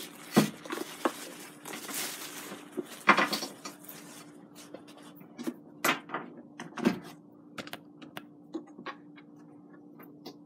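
Clear plastic bag crinkling and rustling as a waffle maker is pulled out of it, then scattered taps and knocks as the plastic appliance is handled and set down on a glass tabletop.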